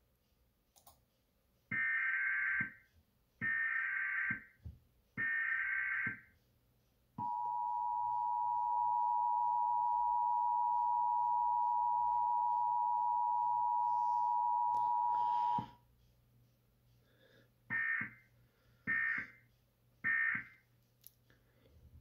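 US Emergency Alert System test signal played through a speaker. Three roughly one-second screechy digital data bursts (the SAME header) come first. About seven seconds in, the steady two-tone attention signal sounds for about eight seconds, and it is followed by three shorter data bursts marking the end of the message.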